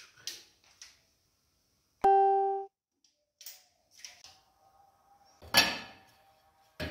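A single steady keyboard-like musical note sounds for under a second about two seconds in. About five and a half seconds in there is a short, loud clatter as a tape measure is set down on the stone countertop, and a sharp click comes near the end.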